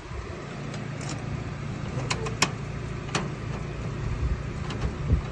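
A few sharp metallic clicks as a freshly cut key is pushed into a mailbox lock, not going in all the way on the first try. A steady low hum runs underneath.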